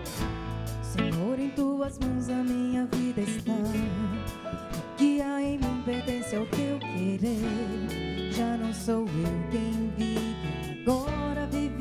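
Live band music: a Nord keyboard and guitars with drums, under a woman singing a slow, wavering melody.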